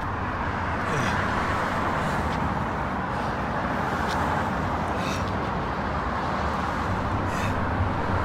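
Steady street traffic noise: the even hum of passing cars on a city road.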